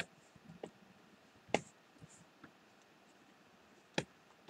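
Four short, sharp clicks from a computer pointing device, the loudest about a second and a half in and the last near the end, over quiet room tone.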